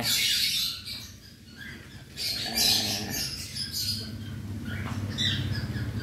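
A flock of cockatiels squawking and chirping, with loud harsh calls at the start and again about two and a half seconds in, over a low steady hum.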